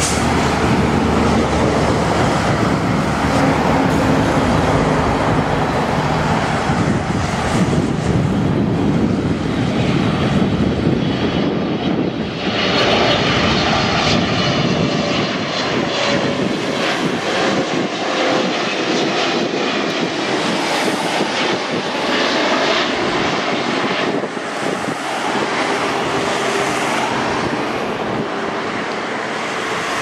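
A Boeing 777-300ER's two GE90-115B turbofan engines on final approach: a steady, loud jet rush. About twelve seconds in, a higher fan whine grows stronger as the aircraft comes closer, with a faint tone slowly falling in pitch as it passes.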